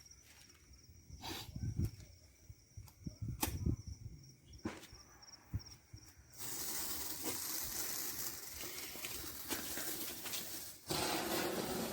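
A lit firework hissing steadily as it burns, starting about six seconds in and cutting out briefly near the end. Before it come a few scattered sharp pops over a faint, steady chirping of crickets.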